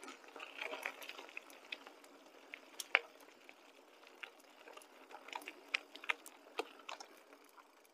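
Mountain bike rolling along a dirt singletrack: the tyres crunch and crackle over the ground, with scattered sharp clicks and rattles from the bike. It thins out and gets quieter after a few seconds.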